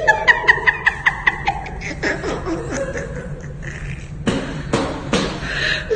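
A person laughing in a quick rhythmic run of 'ha-ha' pulses for about a second and a half, then softer laughter. Three sharp impacts come near the end.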